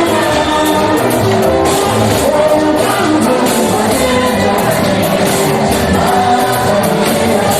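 Choir singing to instrumental accompaniment with a steady percussion beat.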